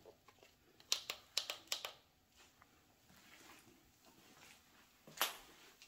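Scattered sharp clicks and crunches in a quiet, small-sounding space: a quick run of about five clicks a second in, then one louder crunch near the end.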